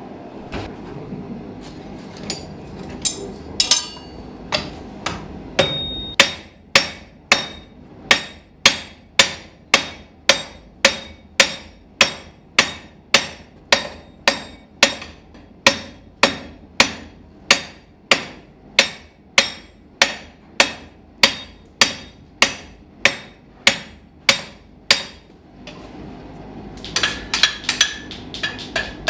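Blacksmith's hand hammer striking hot round iron on an anvil while forging it into a long nail: a few scattered blows, then a long even run of about two ringing blows a second, a short pause, and a quicker run of lighter taps near the end.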